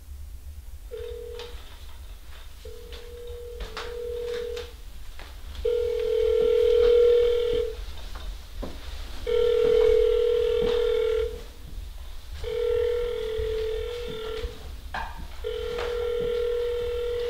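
Telephone ringback tone of an outgoing call ringing at the other end: a low, steady ring about two seconds long, heard six times with roughly one-second gaps, the first one cut short.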